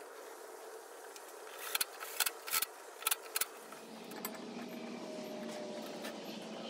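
Light metallic clicks and clinks, about six in the first half, as handlebar parts and tools are handled while the handlebars are fitted to a small quad; from about four seconds in, a faint steady hum.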